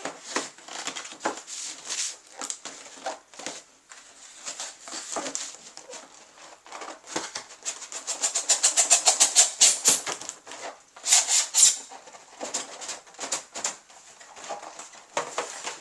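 Cardboard box and plastic packaging being handled as it is emptied: rustling, scraping and crinkling with many short clicks, a fast run of crackles near the middle and a few louder bursts soon after.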